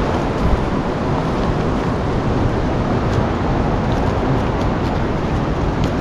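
Wind rushing steadily through forest trees.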